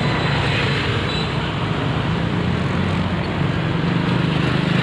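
A vehicle engine running steadily, a low pulsing hum over a noisy background, the hum growing louder near the end.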